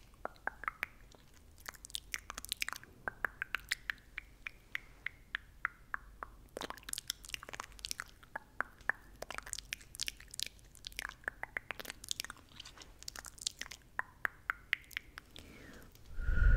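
Close-miked ASMR mouth sounds: wet mouth clicks and tongue clicks in irregular clusters of several a second, with short gaps between. Near the end a brief, much louder low rumble.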